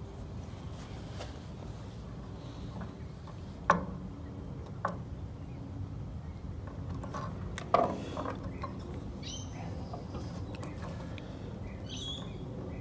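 Small clicks and taps from multimeter test leads and fingers handling a small automotive relay on a wooden table, with two sharper clicks about four seconds apart. A few short bird chirps sound in the background.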